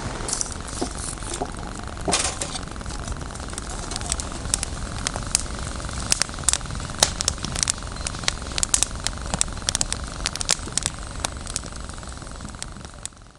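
Wood campfire crackling, with sharp irregular pops over a low steady rumble, the pops coming thicker after the first few seconds; the sound fades out at the very end.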